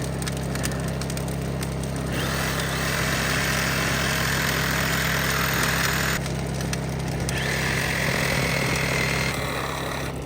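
A machine's engine running steadily, with two long stretches of loud hissing over it: one from about two seconds in to about six seconds, and a shorter one near the end.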